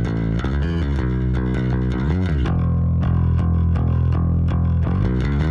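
Solo electric bass guitar line played back through an FMR Audio hardware compressor as a compression test, with sliding notes and one long held low note in the middle.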